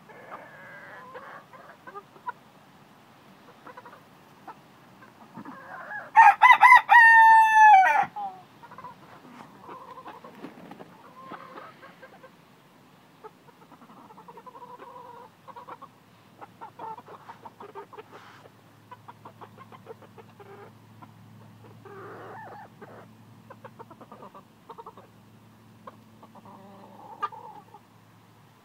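A rooster crows once, a loud call of about two seconds starting about six seconds in. Around it, the flock makes quiet, scattered clucks and calls.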